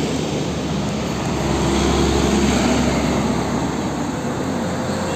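Heavy diesel tanker truck, a green Hino bulk tanker, driving past on a road. Its engine hum and tyre noise are steady, swelling slightly about two seconds in as it goes by.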